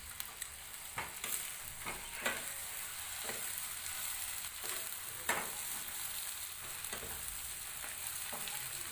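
Onions and green leaves sizzling in hot oil in a non-stick wok while a steel ladle stirs them, with several scrapes and knocks of the ladle against the pan.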